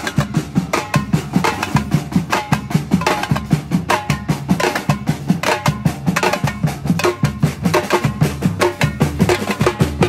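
Live drum troupe playing a fast, driving rhythm on large bass drums and snare drums, struck with mallets and sticks.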